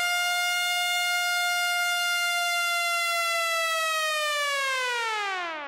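A siren wail held at a steady pitch, then winding down and falling in pitch near the end.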